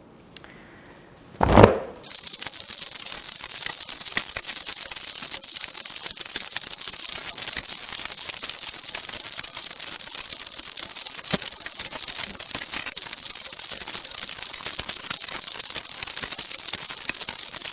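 A Korean shaman's cluster of ritual bells shaken without pause, giving a loud, even jingling. It follows a single knock about a second and a half in.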